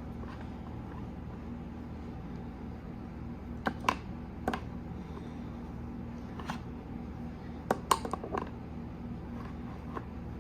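Scattered sharp clicks and knocks of plastic parts from a Play-doh ice cream playset being pushed down and handled, over a steady low hum.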